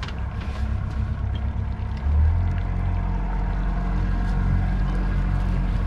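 Boat engine running steadily, then picking up to higher revs about two seconds in and holding there.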